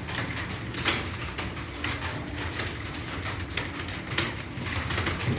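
Typing on an Acer computer keyboard: a quick, uneven run of key clicks, several a second, over a steady low hum.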